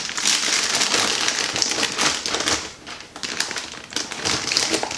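A motherboard in its plastic bag being handled and laid into its cardboard box: plastic rustling and crinkling with many small clicks and taps, busiest in the first couple of seconds and then sparser.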